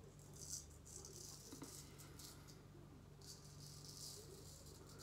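C.V. Heljestrand straight razor scraping through lathered stubble in a run of short, faint, crisp strokes.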